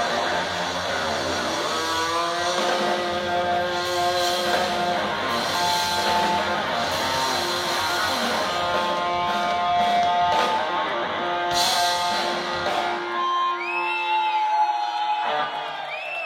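Rock music with guitar, playing sustained held notes that thin out near the end.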